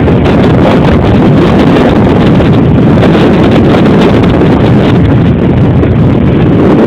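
Wind buffeting the camera microphone: a loud, steady rumbling noise with no clear tones.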